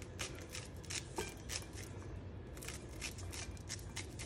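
Kitchen knife cutting kernels off a raw ear of corn: a quick, uneven run of short crisp cuts, about three or four a second, as the blade strips the cob into the salad bowl.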